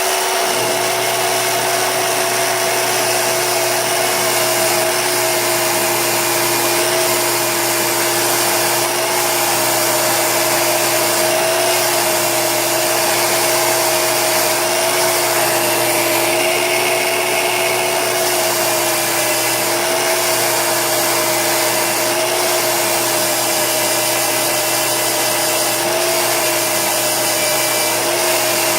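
Old electric drill, mounted as a drill press, running steadily with a constant whine while its 40 mm diamond wheel grinds a carbide stump grinder tooth with a steady hiss.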